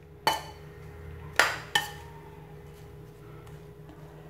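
Metal spoon knocking against a ceramic bowl while stirring a thick, moist mixture: three ringing clinks, one just after the start and two close together about a second and a half in.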